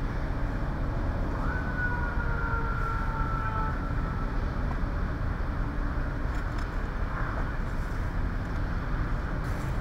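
Steady low rumble of vehicles running at the scene, with a faint thin tone that comes in about a second and a half in and slides slightly down in pitch before fading.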